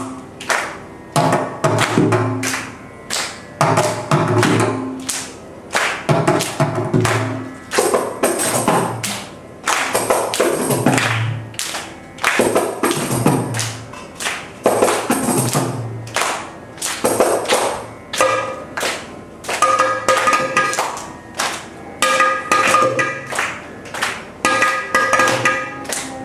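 South Indian Carnatic percussion ensemble of mridangam, kanjira and ghatam playing a tani avartanam: fast rhythmic hand strokes in repeating phrases. About two-thirds of the way in, the twanging pitched tone of a morsing (jaw harp) joins, pulsing in rhythm with the drums.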